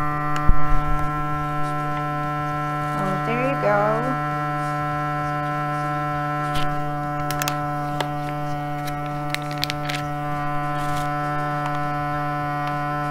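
ABOX V66 vacuum sealer's pump running with a steady hum as it draws the air out of a bag of pork chops, before the heat seal; a few light clicks sound over it.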